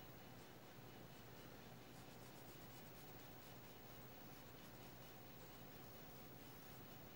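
Faint scratching of a mechanical pencil's graphite on drawing paper as small shading strokes are made, in quick short strokes from about two seconds in, over a low steady hum.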